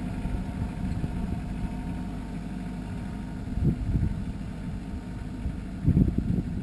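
Compact utility tractor's engine running steadily as the tractor drives away. Gusts of wind buffet the microphone twice, about a third of the way in and near the end.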